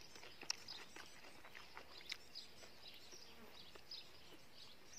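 Faint, scattered bird chirps over quiet outdoor garden ambience, with a few soft clicks of chewing.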